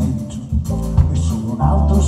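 Live band music from a concert stage, recorded from the audience: a pop band playing with a steady bass line and drums. It dips briefly about half a second in, then the full band comes back.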